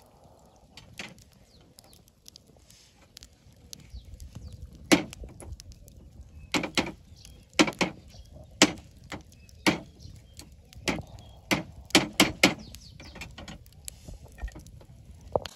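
Wood fire crackling in a pit of burning logs and embers, with sharp pops at irregular intervals that come thickest in the middle stretch.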